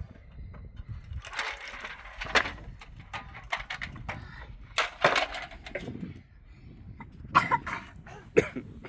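Yellow metal toy dump truck and toy front loader handled and knocked together in sand: a few scattered clanks and scrapes, the loudest about two, five and seven and a half seconds in.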